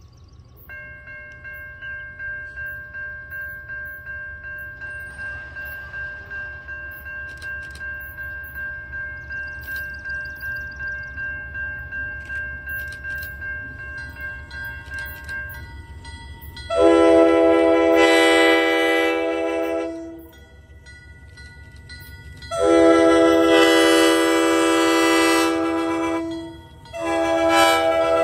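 Approaching diesel freight locomotive: a low rumble with a steady whine at first, then its air horn sounds a chord in two long blasts and a short one, the start of the grade-crossing signal.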